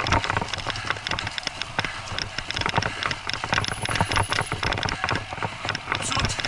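Bicycle rolling fast over a rough dirt forest trail: a steady rattle of many small knocks and clicks from the bike and its tyres on the ground, over a low rumble.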